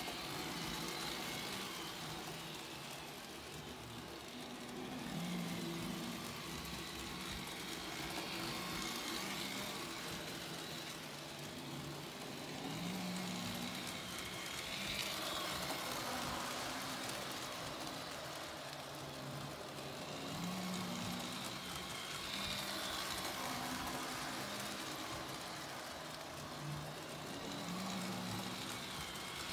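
Lionel 726 Berkshire O-gauge steam locomotive and freight cars running on three-rail tubular track: a steady whir of the electric motor and gearing with the clatter of wheels on the rails. It rises and falls in level about every seven or eight seconds as the train circles the oval.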